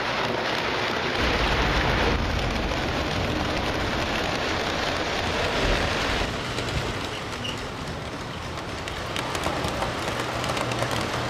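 Model train rolling on three-rail tinplate track: the wheels and cars of a passing model steam locomotive and its passenger cars make a steady rattling rumble, which eases somewhat about seven seconds in.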